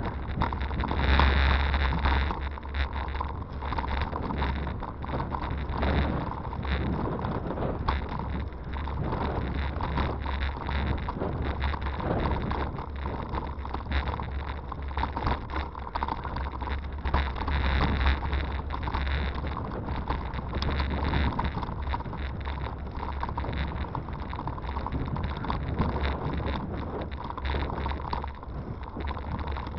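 Wind buffeting the microphone of a bike-mounted camera as a hybrid bicycle rides over a rough gravel and stone towpath, with constant small rattles and knocks from the bumpy surface.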